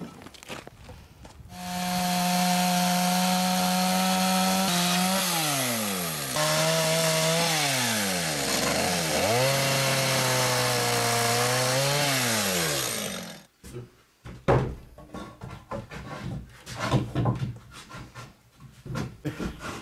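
Two-stroke chainsaw running at high revs and cutting through a wooden board; its pitch drops twice as the chain bogs down in the wood and climbs back, and it stops suddenly about 13 seconds in. A series of short wooden knocks and clatters follows.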